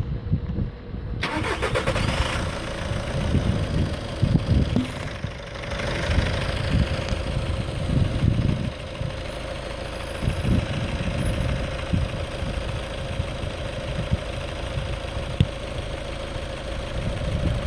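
2010 Volkswagen Golf Mk6 engine starting about a second in, then idling with a steady whine; this start-up noise is the one the owner is showing as a fault.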